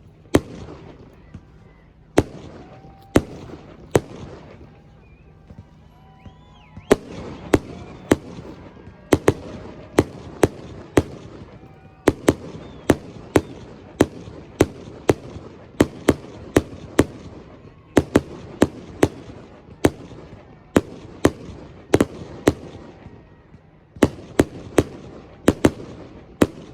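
Aerial fireworks shells bursting in a string of sharp booms with short echoing tails. A few are spaced out at first, then from about seven seconds in they come about one a second or faster.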